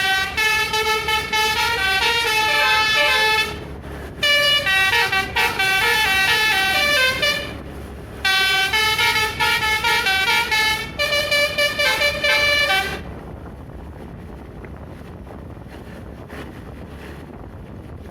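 Bus telolet 'basuri' musical horn playing a tune in three phrases of quick stepping notes, then falling silent about 13 seconds in, leaving steady wind noise.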